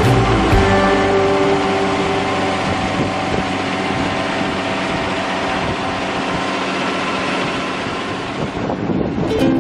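Steady running of an engine or machine. It fades down about nine seconds in.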